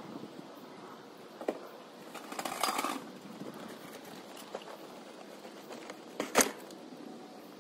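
Junk being loaded onto a truck bed: a knock, then a few seconds later a short scraping rustle, then a single sharp thud about six seconds in as a plastic tote carrying a cardboard box is set down on the load.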